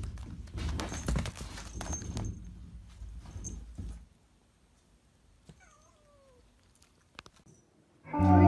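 Soft knocks and rustling, then a short cat meow falling in pitch, with a few clicks. Loud music starts right at the end.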